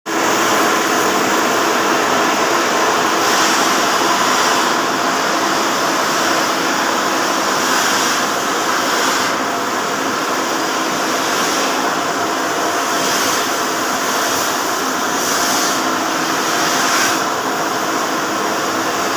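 Machinery running in a ship's engine room: a loud, steady din of hum and hiss, with the hiss swelling and easing every few seconds.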